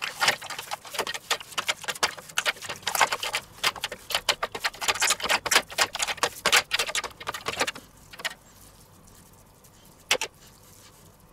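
Hands kneading and pressing seasoned ground beef in a stainless steel tray: a fast run of short wet smacks and clicks that stops about eight seconds in, with one more click near the end.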